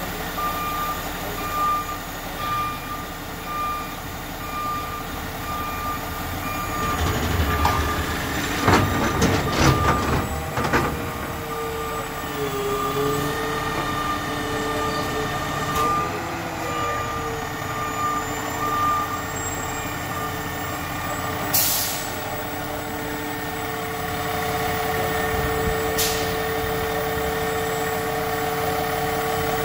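McNeilus side-loading garbage truck running through an automated-arm cycle: a warning beeper sounds steadily over the running engine for the first several seconds, then loud banging and clattering as the trash cart is lifted and tipped into the hopper. A hydraulic whine bends up and down in pitch, two short air hisses follow, and the engine and hydraulics settle into a steady drone near the end.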